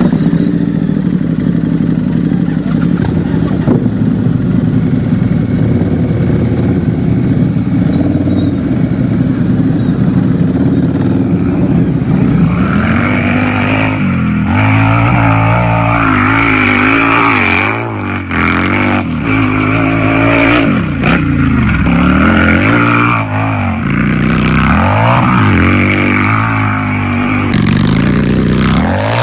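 Harley-Davidson motorcycle's V-twin engine idling steadily, then revved again and again, the pitch rising and falling with each blip of the throttle through the second half.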